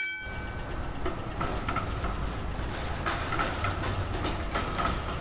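Street noise with a rail vehicle passing close by: a steady rumble with the repeated clatter of wheels over the track.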